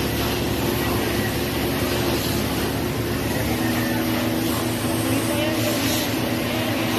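Vehicle engine running steadily under a noisy hiss, its hum stepping to a new pitch about three and a half seconds in.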